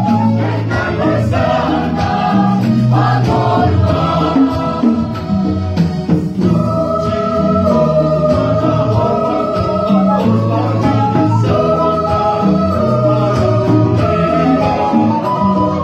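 Mixed church choir of women and men singing together, holding long chords through the second half.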